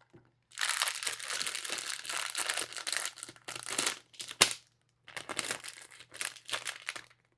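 Blind-box packaging being opened by hand: crinkling plastic wrapping in two long stretches, with one sharp click about four and a half seconds in.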